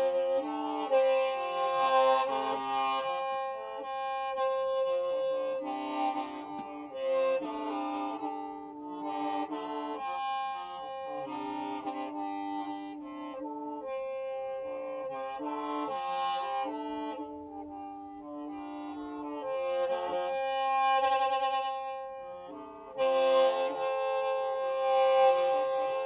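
Hmong qeej, a free-reed bamboo mouth organ, playing a melody of held, reedy chords over a steady drone note, with a brief dip in loudness near the end.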